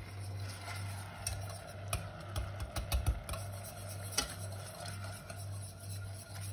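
Wire whisk stirring a melted-butter marinade in a stainless steel saucepan, its tines clicking and scraping irregularly against the pot.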